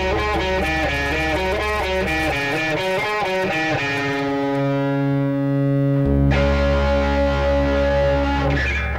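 A rock band's recording in an instrumental passage: a distorted guitar plays a moving riff, then switches to held chords about four seconds in. The low bass drops out for a few seconds in the middle and comes back.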